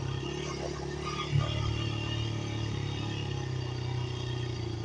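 Dirt bike engine running steadily at low speed while the bike rides over grass, with a brief knock about a second and a half in.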